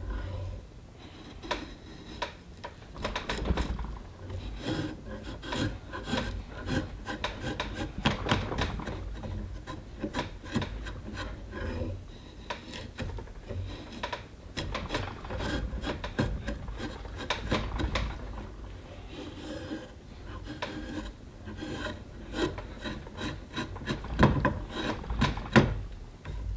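Drawknife shaving the outside of a green-wood bowl blank: a continuous run of irregular scraping, slicing pulls of the blade through the wood, with sharp clicks here and there.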